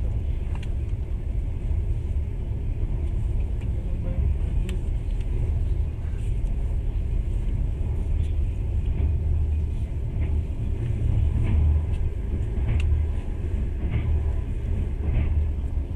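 Passenger train running at speed, heard from inside the carriage: a steady low rumble with scattered light clicks and rattles.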